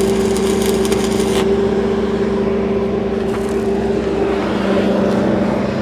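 Stick-welding arc crackling on steel pipe with a cellulosic 6010/8010 electrode, cutting off about a second and a half in. A steady engine drone continues underneath.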